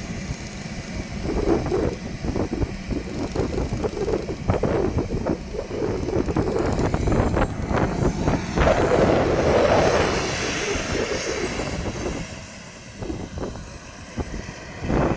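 Twin model jet turbines of a giant-scale RC A-10 running as it taxis: a steady rush with a thin high whine that slides up and down in pitch, loudest about two-thirds of the way in.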